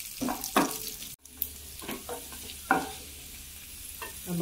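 Cashew nuts and raisins frying in ghee in a non-stick pan, sizzling steadily, while a wooden spatula stirs and scrapes them in a few short strokes. The sound cuts out for an instant about a second in.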